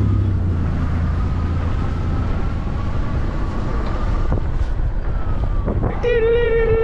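Road noise and wind buffeting the microphone while riding an e-bike through city traffic, a steady low rumble throughout. Near the end a long, wavering howl-like cry cuts in over it.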